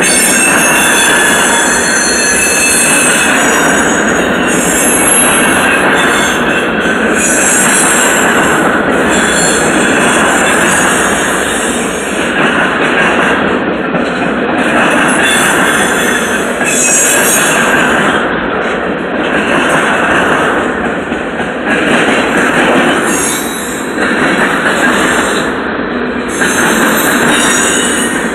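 CN freight train's cars rolling past close by: a loud, steady rumble and rattle of steel wheels on rail, with a high-pitched wheel squeal that keeps coming and going.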